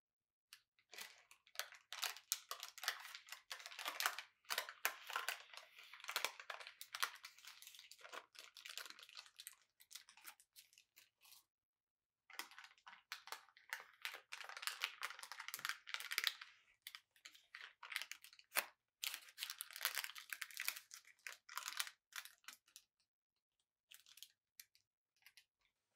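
Parchment paper crinkling and tearing as it is peeled away from the sides of a baked cheesecake. It comes in three long stretches, with a few short rustles near the end.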